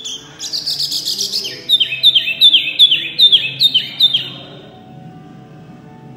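A caged mini hwamei ('wambi mini') songbird singing loudly. It gives a quick run of high, varied notes, then about eight repeated whistles, each falling in pitch, at roughly three a second. The song stops about four seconds in.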